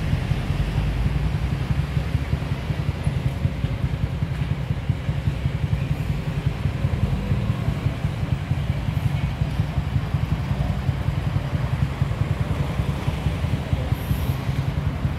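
Street traffic: engines of passing jeepneys, motor tricycles and cars, over a steady low rumble.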